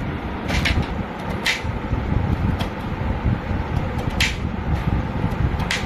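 Kitchen knife dicing a red onion on a plastic cutting board: about six sharp, irregularly spaced taps of the blade on the board, over a steady low rumble.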